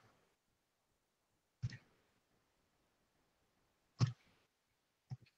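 Three faint, sharp computer mouse clicks, a second or two apart.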